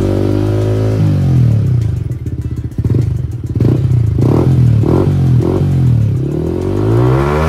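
Yamaha MT-15's single-cylinder 155 cc engine revving through an R9 aftermarket exhaust being tried on. The revs rise and fall repeatedly, dropping off about two seconds in, then a run of quick throttle blips in the middle and a longer rev near the end.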